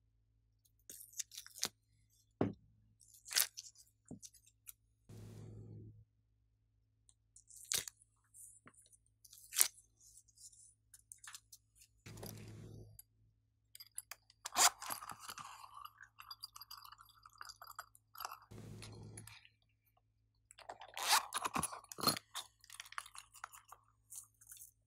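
Sharp clicks and taps of thin plastic slime molds being handled, with glitter slime crackling as it is peeled out of the molds and pressed into a glass dish. The crackling comes twice, once past the middle and again near the end.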